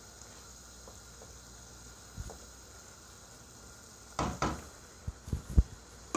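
A wooden spatula stirring keema sauce in a non-stick pan over a faint simmering sizzle, with a knock about two seconds in and a quick series of knocks of the spatula against the pan in the second half, the loudest near the end.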